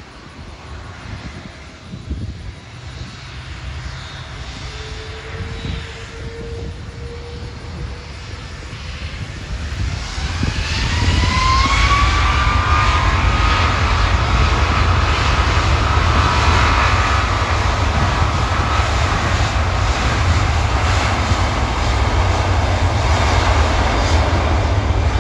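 Boeing 777's two turbofan jet engines spooling up for takeoff. A low rumble builds slowly, a rising whine climbs about ten seconds in, and the engines then run loud and steady at takeoff thrust.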